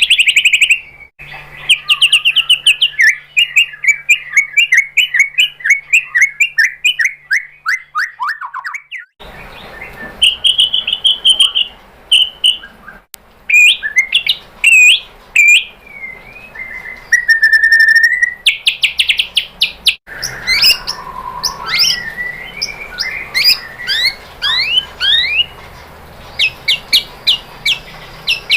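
White-rumped shama (murai batu) singing a varied song of rapid trills, clear whistles and quick runs of falling notes. The song is made of separate recordings that change abruptly about a second in, about a third of the way through, and about two-thirds through.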